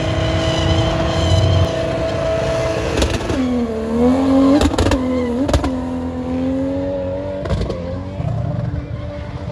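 SUV engine held at high, steady revs, then dropping in pitch and rising and falling as it pulls away, with a few sharp cracks about halfway through.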